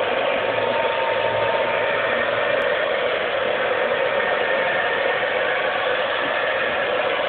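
Handheld hair dryer running steadily as it dries a dog's coat: a constant whir of its fan and motor with a faint whine.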